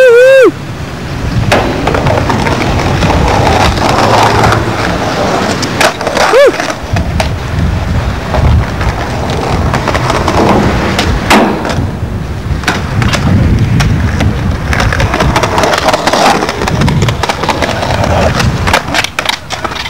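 Skateboards rolling on concrete with sharp clacks of boards hitting the ground, several close together near the end. A short, loud voice-like whoop at the very start, and a smaller one about six seconds in.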